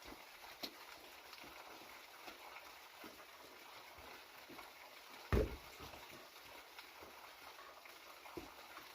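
Stones knocking together as they are handled and set in place: scattered light knocks, with one louder thud about five seconds in.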